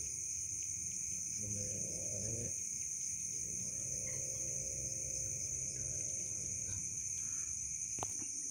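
Steady night chorus of crickets and other insects, high-pitched and continuous. Over it come two low, drawn-out pitched sounds, a short one about a second and a half in and a longer one a few seconds later, with a sharp click near the end.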